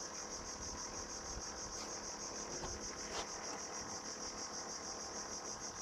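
Steady high-pitched chirring of insects, with a light knock about three seconds in.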